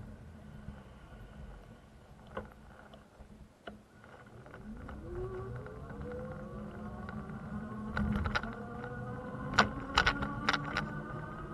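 City street traffic heard from a bicycle: a steady low hum, then a vehicle accelerating, its pitch rising from about four seconds in and levelling off. Several sharp clicks and rattles come in the last few seconds.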